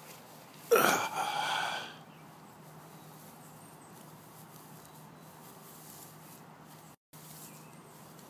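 A short, breathy vocal sound from a person, about a second long, comes about a second in. Then there is only a faint steady outdoor background, which cuts out briefly near the end.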